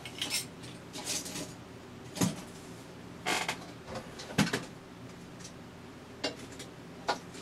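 Hand tools being rummaged through and set down on a workbench: scattered rattles and rustles, with two sharp knocks about two and four seconds in.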